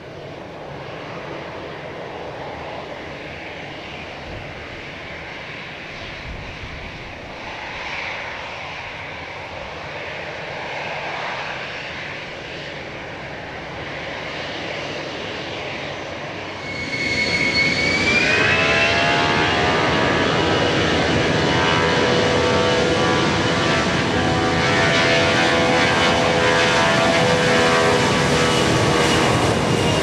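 Aircraft engines. A steady distant hum for about seventeen seconds, then suddenly much louder, with a whine that rises in pitch and then holds steady over a deeper engine drone.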